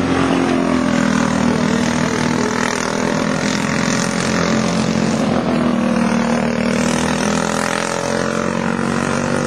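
Several racing go-kart engines running at speed as the karts lap the track, their pitch rising and falling through the corners and overlapping.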